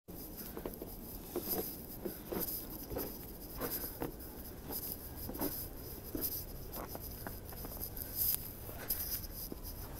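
Footsteps crunching in fresh snow, a step roughly every half second to three-quarters of a second.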